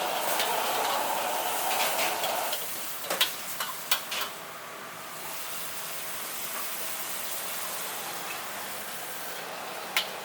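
Green vegetables sizzling in a wok over high heat, with a few sharp metal clanks about three to four seconds in. The sizzle eases to a quieter steady hiss after about two and a half seconds.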